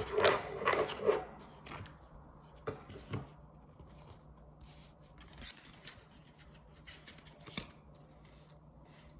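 Tarot cards being shuffled and handled: a dense run of shuffling in the first second or so, then scattered soft card clicks and rustles that thin out, over a faint steady low hum.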